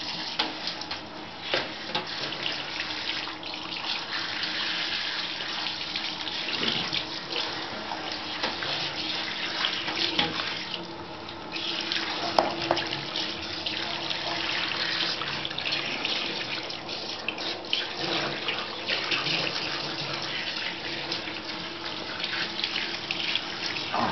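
Handheld shower spray running steadily onto a puppy's wet coat and into a bathtub, with a brief dip in the spray about eleven seconds in.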